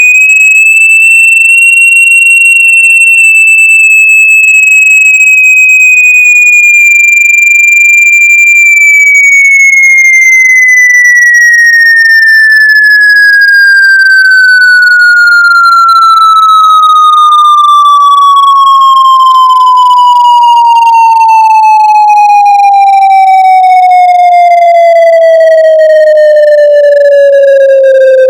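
Loud generated sine-wave tone for shaking water and dust out of a speaker. It holds a high pitch for the first several seconds, then glides slowly and steadily down to a much lower pitch.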